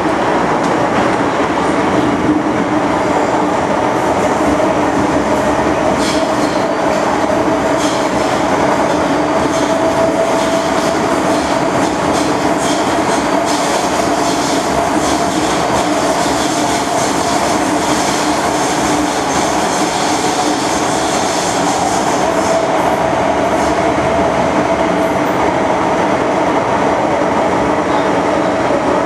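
MTR M-Train, a Metro-Cammell electric multiple unit, running through a tunnel, heard from inside the car by the door: a steady, loud roar of wheels on rail with a low hum. There is a stretch of clicking and rattling in the middle.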